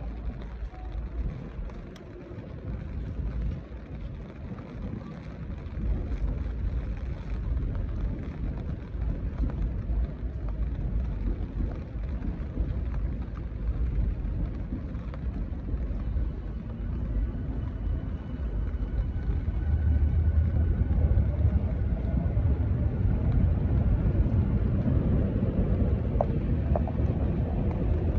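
Outdoor city ambience: a low, unsteady rumble that grows louder about two-thirds of the way in.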